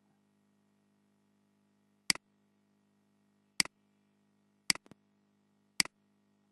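Computer mouse clicking four times, about a second apart, over a faint steady electrical hum.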